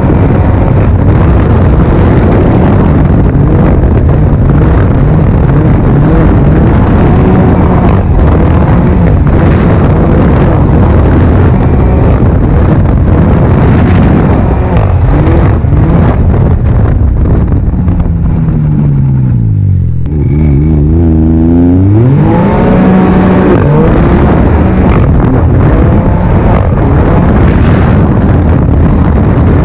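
Ski-doo 900 ACE Turbo R turbocharged three-cylinder four-stroke snowmobile engine at speed, heard through a Straightline Performance trail muffler. A little past halfway the engine pitch falls as the throttle eases off, then climbs back up as it accelerates hard again.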